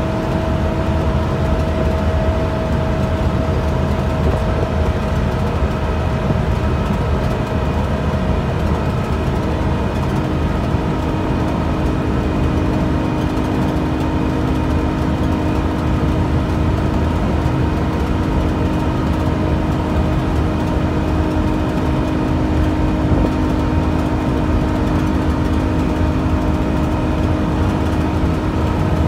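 Volvo B7TL double-decker bus's diesel engine and drivetrain running at road speed, heard from inside the upper deck: a steady low rumble and road noise with a held whine, a higher tone early on giving way to a lower one about ten seconds in.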